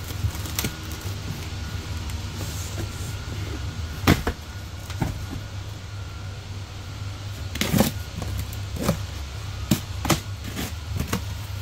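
Cardboard boxes being handled and opened, with scattered sharp knocks and rustling of cardboard, over a steady low background hum. Near the end, packing tape is slit on a box.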